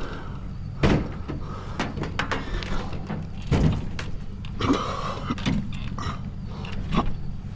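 Several sharp knocks and clanks, spaced a second or more apart, over a steady low hum.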